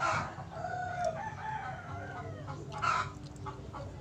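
Chickens clucking and a rooster crowing: a drawn-out call at the start and short, sharp clucks about three seconds in.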